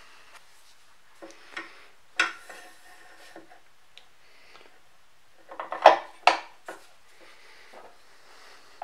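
Metal parts of a Kity 652 mortiser and a hand tool clinking and rattling as they are handled. A rattle comes about two seconds in, and two sharp clanks, the loudest sounds, come about six seconds in.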